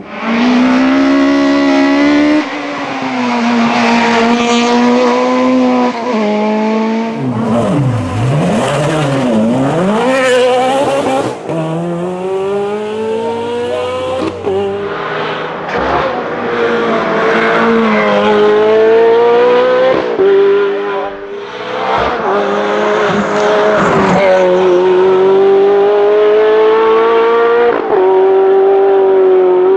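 Race car engines at full throttle on a hillclimb, the revs climbing and dropping back again and again at each gear change. One car passes close about eight to eleven seconds in, its note sweeping down and up sharply. In the later part the engine is a Ferrari F430 race car's V8.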